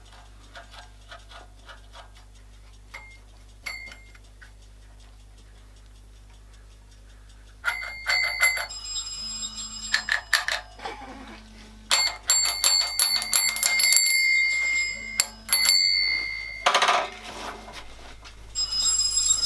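Handlebar bicycle bell being rung with the thumb in several quick bursts of a bright metallic ring with several clear overtones, starting about a third of the way in and repeating to near the end. Faint clicks of the bell being worked come before the ringing.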